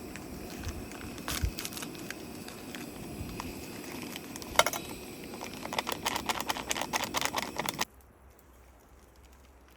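Wood fire crackling: a steady hiss with scattered pops and snaps, growing denser toward the end, then cutting off suddenly about eight seconds in.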